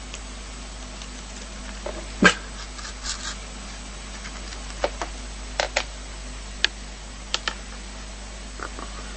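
A dog making about eight short, sharp sounds spaced irregularly over several seconds, the loudest about two seconds in, over a steady background hiss.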